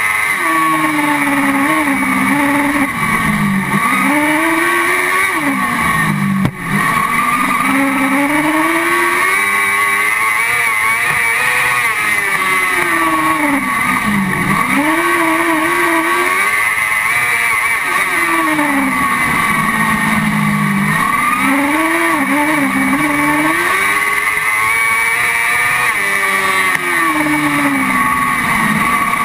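Crosscar's engine heard from inside the cockpit at racing speed, its pitch climbing and falling over and over as it accelerates, shifts and lifts off through the corners. A single short knock about six and a half seconds in.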